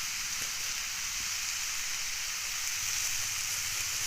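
Supa mushrooms frying in oil in a pan: a steady sizzling hiss with a few faint crackles.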